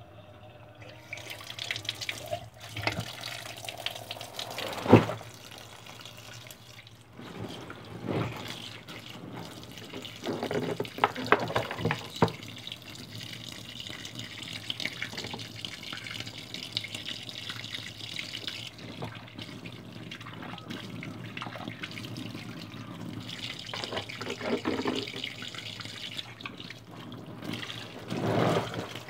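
Tap water running and splashing during laundry washing, with scattered knocks and thumps; the sharpest knock comes about five seconds in. The running water stops for a few seconds past the middle, then starts again.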